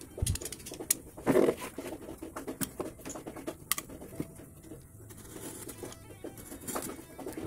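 Hands handling a miniature model truck cab and working it with a utility knife: irregular clicks, scrapes and rustles, with a louder crunchy scrape about a second and a half in.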